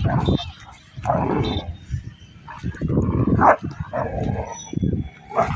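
Rottweiler barking in short bursts, several times, while confronting cattle, with a heavy low rumble of handling and movement on the microphone underneath.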